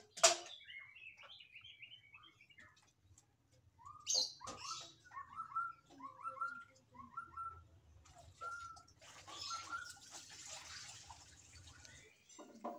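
Small birds chirping in short, repeated, downward-sliding calls, with a faint low hum underneath. A sharp click comes right at the start, and a stretch of hiss comes in about nine seconds in.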